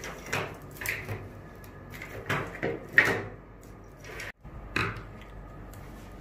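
A wiring harness with plastic connectors and crimp terminals being handled on a wooden tabletop: a few short rustles and clacks of wire and plastic, the loudest about three seconds in.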